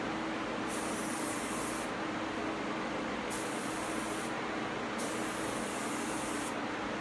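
Gravity-feed spray gun spraying sanding sealer in three hissing passes: two of about a second each, then a longer one of about a second and a half. A steady hum runs underneath.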